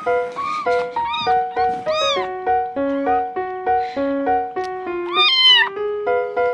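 Young kitten meowing about four times, each call arching up and down in pitch; the last, about five seconds in, is the longest and loudest. Piano background music plays throughout.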